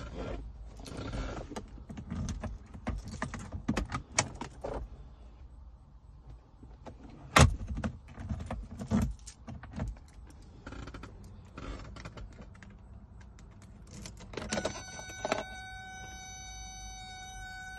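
Clicks and knocks of a Mercedes W123 300TD's interior trim being handled, with a sharp snap of the glovebox latch about seven seconds in. Near the end, keys rattle in the ignition and a steady buzzing tone sounds with the ignition switched on.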